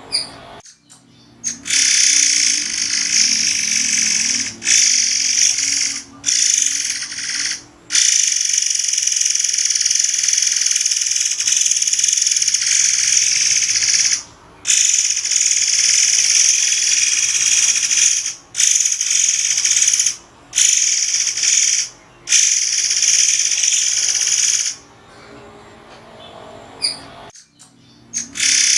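A 'murai air' songbird singing high, piercing, sharp notes in long dense bursts, broken by brief pauses. The song stops a few seconds before the end.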